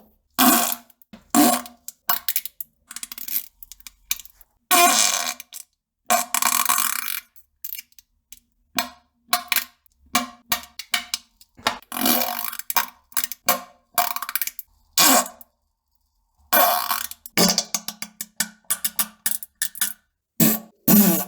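A string of fart sounds, one after another with short silent gaps between them. Some are long and hold one low note, others are short pops or fast rattling sputters.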